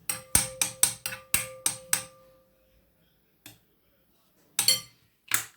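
A spoon tapping sharply against a dish about seven times in two seconds, the dish ringing on between and after the taps. A few scattered knocks follow near the end.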